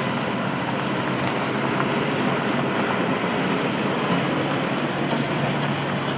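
An engine running steadily with a constant low hum under an even wash of noise.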